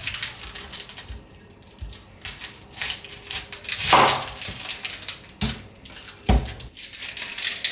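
Chinese cleaver cutting through red onions and knocking on a wooden cutting board: a run of crisp crunches and knocks, the loudest crunch about four seconds in and a couple of heavier thuds of the blade on the board soon after.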